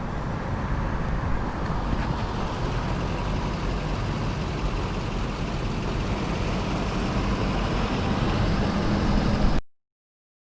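Steady traffic and road noise from a busy highway, with a strong low rumble. It cuts off abruptly to silence about nine and a half seconds in.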